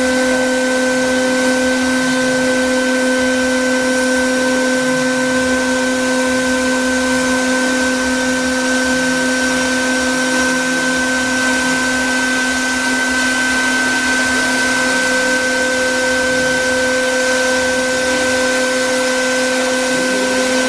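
Air-cooled 3 kW CNC router spindle running at a constant speed: a steady whine of several fixed pitches over the rush of its cooling fan.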